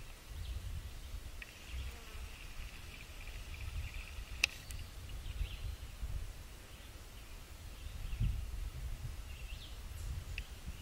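Faint insect buzzing, a steady high drone, over a low rumble on the microphone, with one sharp click about four and a half seconds in.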